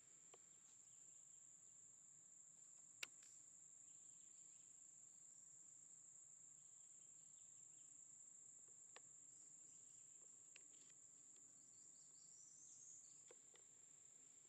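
Near silence apart from a faint, steady, high-pitched insect chorus that never lets up. A single sharp click sounds about three seconds in, and a softer one about nine seconds in.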